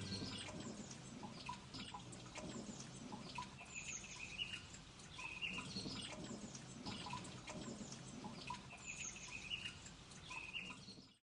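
Faint birds chirping in short, repeated calls over a low background ambience, cutting off abruptly at the end.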